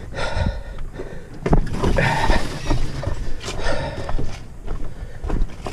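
A person breathing hard in repeated surges, with scattered thumps and scuffs, while exerting on a steep portage trail.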